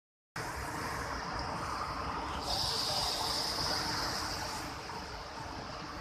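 Steady rushing roar of a large waterfall, heard as an even noise with no distinct events. A high, steady hiss joins about two and a half seconds in and fades again near the end.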